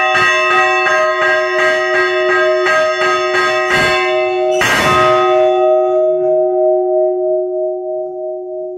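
A large, 143-year-old church bell is rung by a rope from below, heard loud and close up. Its ringing tone pulses about three times a second with repeated clapper strokes. One louder strike comes about five seconds in, then the bell hums on and slowly fades.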